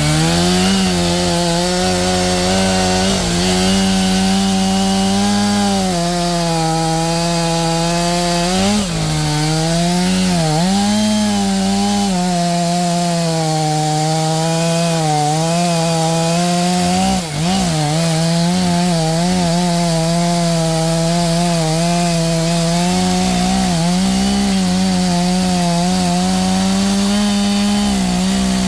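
Two-stroke chainsaw running at high revs and cutting into a Western red cedar log, the engine pitch sagging briefly a few times as the chain bites.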